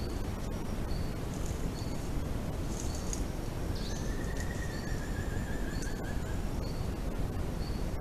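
Night forest ambience picked up by a trail camera's microphone: a steady low hiss, a short high chirp repeating every half second or so, and a faint wavering whistle lasting about three seconds from the middle.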